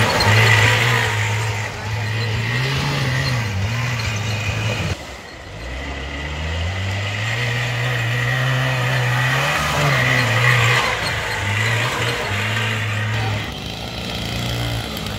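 Small mini-tractor engines revving and labouring through mud, the pitch rising and falling with the throttle. About five seconds in the sound cuts abruptly to another engine that revs up steadily and then drops back.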